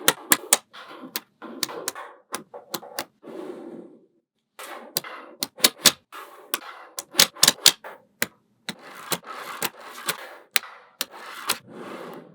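Small magnetic balls clicking as they snap onto one another, with rattling and scraping between the clicks. There is a brief pause about four seconds in.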